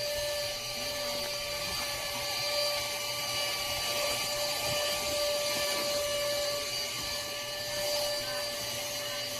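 Philips portable wet-and-dry car vacuum cleaner running steadily, its small motor giving a constant whine over a rush of air.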